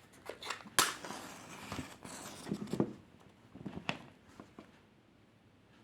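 Scattered sharp clicks and knocks of hands handling small hard objects, the loudest about a second in, a cluster around two to three seconds and one more near four seconds, then fading to faint room tone.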